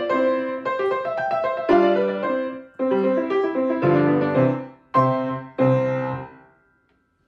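Piano music: a run of notes and chords, then a few final chords struck about a second apart, each left to ring and die away, fading out near the end.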